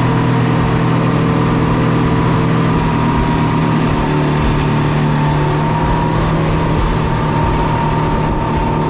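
Speedboat engine running steadily at speed, with rushing wind and water noise; the engine note shifts slightly about three to four seconds in.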